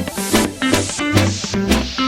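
Electronic dance background music with a steady beat and bass.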